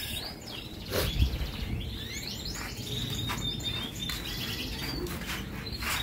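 Many caged canaries singing at once: overlapping chirps, quick trills and twittering. A sharp knock about a second in.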